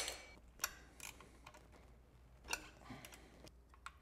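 About half a dozen light, sharp metallic clicks at uneven intervals, the loudest at the very start: small bolts and ring terminals being handled by hand at the terminal posts of an electric motorbike's motor controller.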